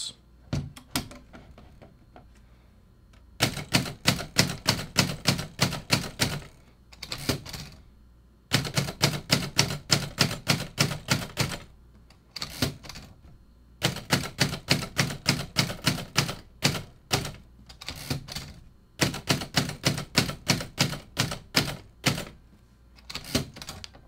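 Remington Noiseless Model 7 portable typewriter being typed on in capitals: four quick runs of keystrokes, about six a second, with short pauses between the runs.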